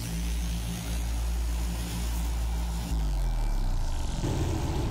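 Heavy Mercedes truck's diesel engine labouring at low revs while pulling a lowboy loaded with an excavator; its pitch drops about three seconds in, and the sound turns rougher and more uneven near the end.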